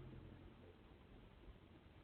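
Near silence: faint steady background hiss with a low rumble.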